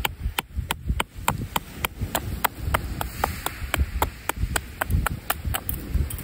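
A quick, even series of sharp taps or knocks, a little over three a second, over low wind rumble on the microphone.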